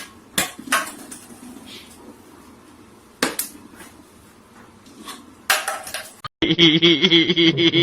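A few separate sharp knocks or clinks, then a short noisy clatter. After a brief cut, a steady sound with several held tones takes over near the end.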